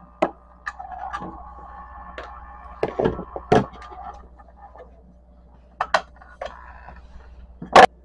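Scattered clicks and knocks of a screwdriver and hands working the screw and metal cover of a refrigerator compressor's starter relay, the loudest about three seconds in and near the end, over a low steady hum.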